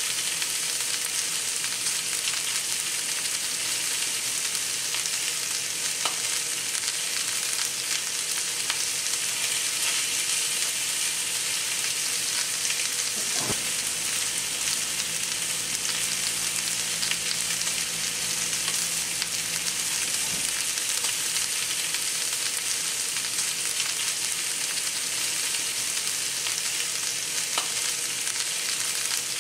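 Two New York strip steaks sizzling in a cast-iron skillet, a steady high hiss of frying. About halfway through, a single clack as metal tongs turn the steaks over.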